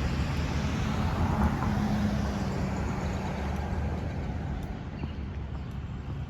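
Road traffic: a passing vehicle's engine and tyre noise, fading as it moves away.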